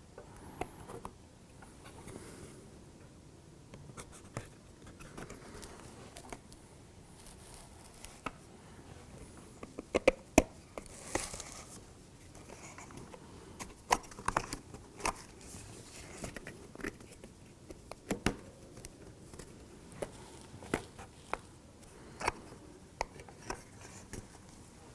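Small pieces of a laser-cut model kit being handled and fitted together by hand: scattered sharp clicks and taps as parts knock and seat against each other, the loudest a quick pair about ten seconds in, with a short scraping swish just after.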